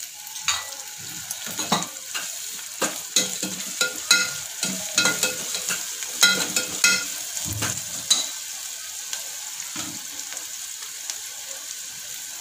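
Spice tempering frying in oil in an open pressure cooker, sizzling steadily as freshly added crushed garlic, ginger and green chilli cook. A perforated steel spoon stirs it, scraping and clinking against the pot. The stirring noises come thick and fast for the first seven or eight seconds, then the sizzle goes on with only a few taps.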